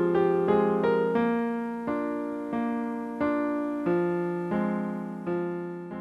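Piano music: single notes and chords struck one after another, each ringing and fading. The notes are close together at first and slow to about one every two-thirds of a second.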